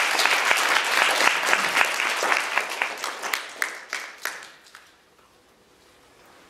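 Audience applauding, the claps thinning out and dying away about five seconds in.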